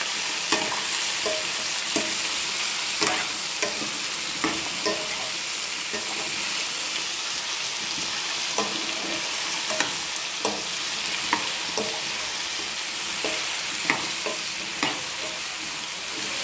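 Potato and cucumber pieces frying with a steady sizzle in hot oil while a metal spatula stirs and scrapes them around the pan, knocking on the pan about once a second.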